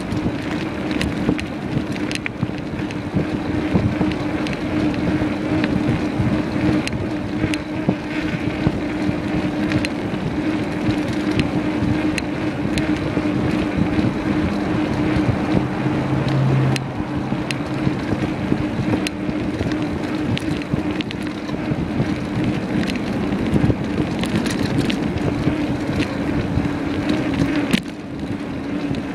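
Wind rushing over the microphone on a moving bicycle, with road noise, a steady hum and frequent small clicks and rattles from riding over the pavement; it eases slightly near the end.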